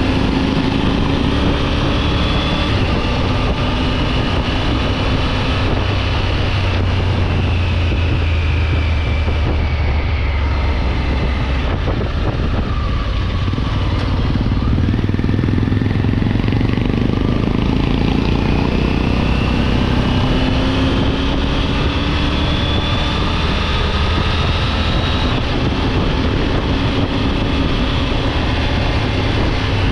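Triumph Tiger 900 GT Pro's three-cylinder engine running under way, its pitch falling over the first few seconds and climbing again after the middle, over a steady rush of wind and road noise.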